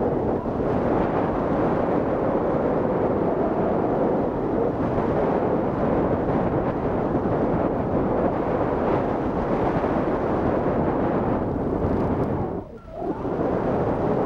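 Wind rushing over the microphone of a camera mounted on a hang glider in flight: a steady, even rush of wind noise that briefly drops away near the end.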